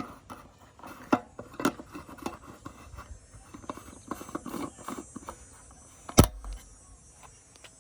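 Scattered light clicks and taps of hard plastic and metal being handled, with one sharp knock about six seconds in.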